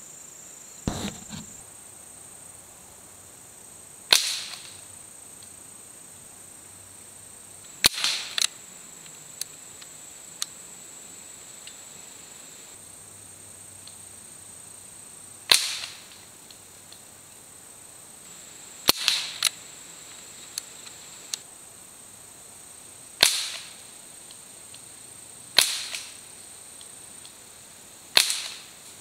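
Crosman 1077 .177 CO2 semi-automatic pellet rifle firing about eight single shots a few seconds apart, each a sharp crack with a short tail.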